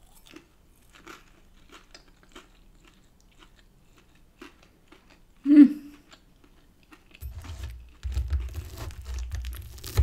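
Close-up chewing of a mouthful of chicken Kiev and chips, with soft wet mouth clicks. About five and a half seconds in there is one loud short mouth sound. From about seven seconds on, knife and fork cut into the chicken Kiev on a wooden chopping board, scraping and knocking over a low rumble.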